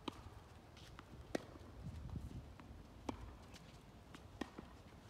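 Tennis ball impacts: racket strikes and bounces on a hard court, a series of sharp knocks about one and a half seconds apart, four loud ones and a few fainter ones.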